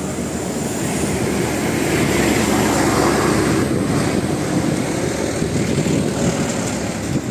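A heavy vehicle, a bus, passing with a steady engine and road rumble that swells slightly a couple of seconds in; no horn tune sounds.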